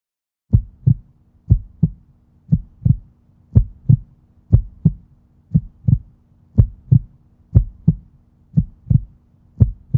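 Heartbeat sound effect: paired low thumps, lub-dub, about once a second, starting about half a second in, over a faint steady hum.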